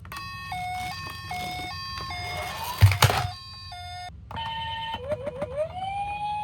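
Toy ambulance siren sounding a hi-lo 'pee-poh' two-tone, switching pitch about every third of a second. A loud thunk comes about three seconds in. Near the end a few short rising chirps lead into a siren winding up to a steady note.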